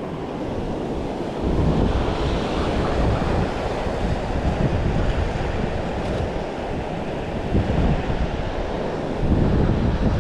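Wind buffeting the microphone with a low, uneven rumble over the steady wash of ocean surf.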